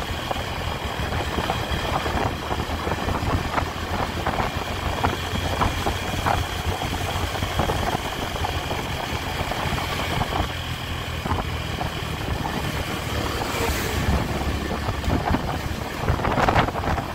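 Honda Tiger's single-cylinder four-stroke engine running steadily under way, with road and wind noise. Near the end a louder rush as an oncoming car passes.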